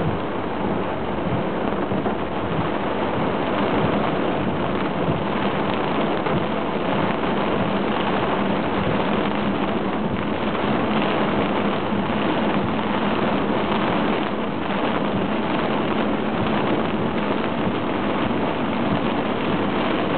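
Heavy cloudburst rain drumming steadily on a car's roof and windshield, heard from inside the cabin.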